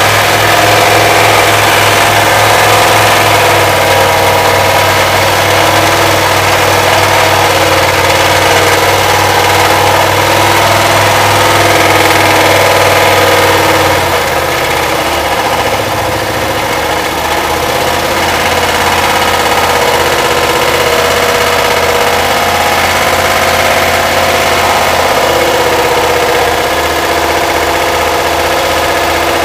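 Dodge V8 in a 1985 Dodge 250 van running steadily while badly overheated and being run to destruction, smoke and steam pouring from it. About halfway through, its note drops to a lower engine speed and stays there.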